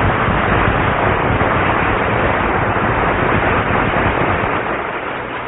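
Studio audience applauding, tapering off toward the end.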